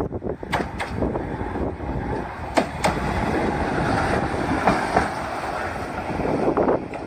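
Two-axle tram, the former Graz city tram No. 320, running past close by: a steady rumble from wheels and running gear, loudest as it goes by midway. Sharp wheel clicks come in pairs over the rail joints.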